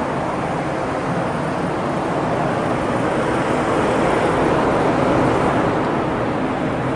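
Steady factory workshop noise: a continuous, even roar of machinery with no distinct rhythm, swelling slightly near the middle.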